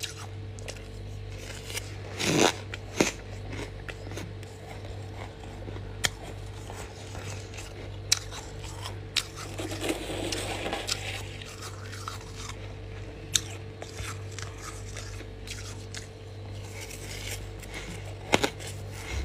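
Biting and chewing powdery freezer frost: sharp crunches spaced several seconds apart, with a longer stretch of crunchy chewing about ten seconds in. A steady low hum runs underneath.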